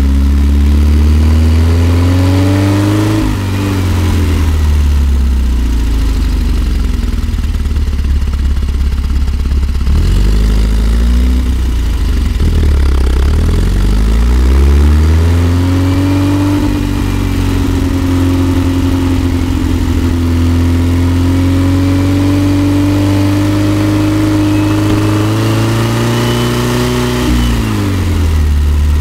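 1964 Volkswagen Type 2 bus's air-cooled flat-four engine pulling uphill. The revs climb for about three seconds, drop and dip again around the middle, then hold steady for much of the second half before falling off near the end.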